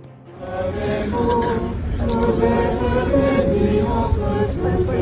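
A large crowd singing a hymn together, many voices at once, starting about half a second in.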